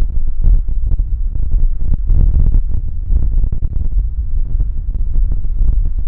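Strong gusting wind buffeting the microphone: a loud, uneven low rumble that swells and drops with each gust.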